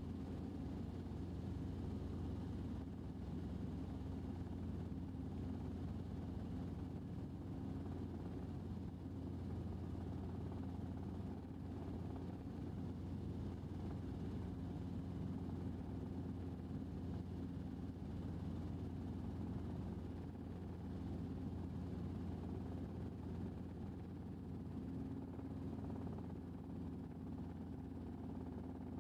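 Helicopter engine and rotor noise heard from inside the cabin in flight: a steady low hum with a few held tones in it, unchanging throughout.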